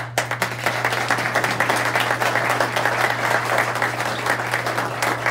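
Audience applauding: dense, many-handed clapping that starts abruptly and keeps up steadily.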